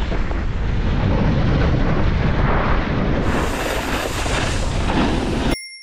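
Wind rumbling on the camera microphone: a loud, steady, deep rumble that drops away sharply near the end.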